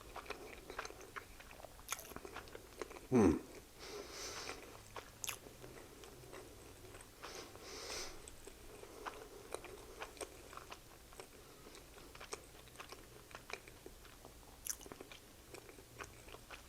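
Close-miked chewing of an unbreaded blackened chicken sandwich: soft wet mouth clicks and smacks throughout, with a short hum of enjoyment about three seconds in.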